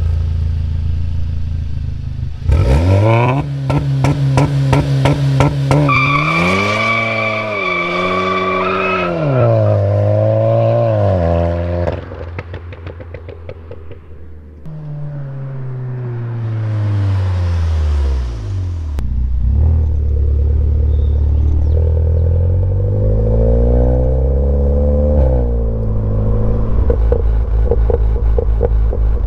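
VW MK7 GTI's turbocharged 2.0-litre four-cylinder through a custom exhaust: idling, then revs held high with a rapid stutter before a hard launch. It pulls away rising in pitch through upshifts and fades. Later the engine note rises and falls again under lighter throttle, with crackles near the end.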